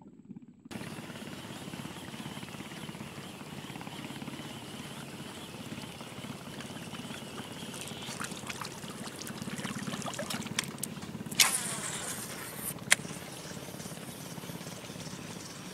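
A small engine running steadily, starting about a second in, with a few light clicks and two sharp knocks in the second half, the first knock the loudest.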